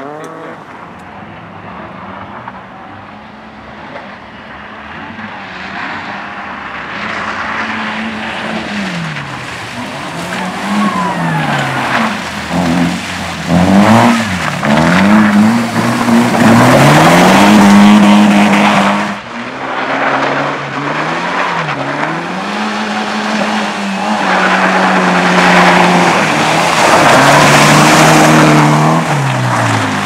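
Mercedes-Benz C-Class rally car driven hard on a muddy track, its engine revs rising and falling again and again as it approaches, getting louder as it slides past with wheels spinning and throwing mud. The engine note drops suddenly about two thirds of the way in, then it revs up again as it pulls away.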